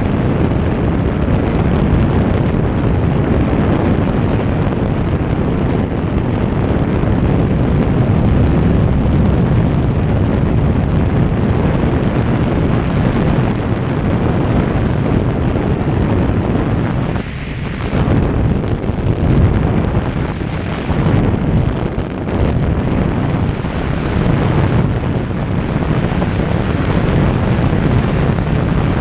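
Wind buffeting the microphone over the steady rush of a jet boat running at speed. The noise dips briefly about two-thirds of the way through.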